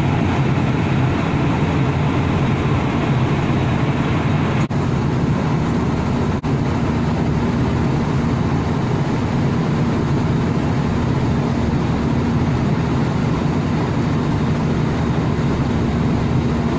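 Airliner cabin noise: a steady rushing of engines and airflow with a constant low hum, dipping out twice for an instant about five and six seconds in.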